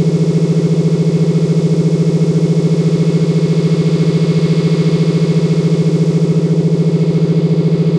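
Synthesized imitation of MRI scanner noise from a music app: a loud, steady low buzz pulsing rapidly and evenly, without change.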